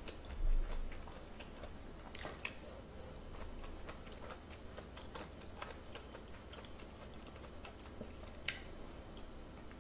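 Faint, irregular small clicks and ticks of eating close to the microphone: mouth sounds and a plastic spoon on the dishes. There is a soft low thump about half a second in and a sharper click near the end.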